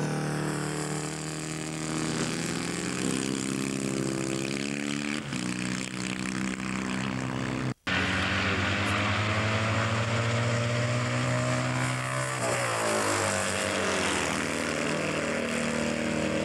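Classic motorcycle engines running at a race track, one climbing steadily in pitch as it revs, then dropping abruptly at a gear change. Near the end the engine pitch sweeps through as a bike passes. The sound cuts out for a moment about halfway through.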